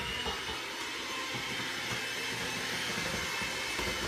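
A small electric kitchen appliance motor running steadily with a whooshing hiss, having spun up just before.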